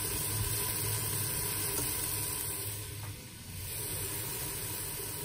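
Squash sabzi sizzling in a metal pot on the stove: a steady hiss with a low hum beneath, dipping briefly about three seconds in.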